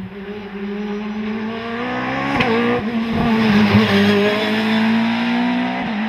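Open-cockpit sport-prototype race car at full throttle, approaching and passing close by. Its engine note grows louder to a peak about three to four seconds in, with a few brief dips in the note, then eases as the car pulls away.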